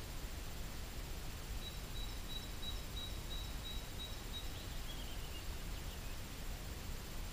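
A small songbird singing: a run of short, evenly spaced high notes, about three a second, then a lower falling phrase. Under it is a steady low outdoor rumble.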